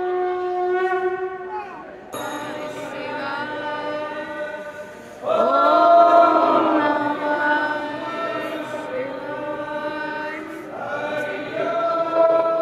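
A conch shell blown in one long steady note that stops about two seconds in, followed by devotional chanting by several voices, which swells loudly about five seconds in.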